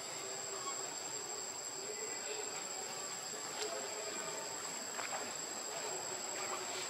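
Steady, high-pitched drone of an insect chorus, with a few faint ticks.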